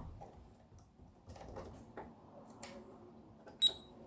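Scattered light clicks and taps of test probes and small tools being handled against an electronic circuit board, with one sharper click and a brief high ring near the end.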